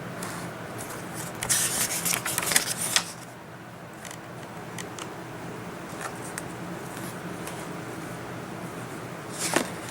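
Paper rustling as the pages of a book are handled and turned, in a burst about a second in and again near the end, with a few light clicks in between, over a faint steady hum.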